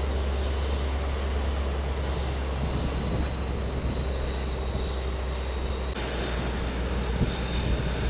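A steady low rumble under an even rushing noise, with a faint thin high tone; the sound shifts slightly about six seconds in.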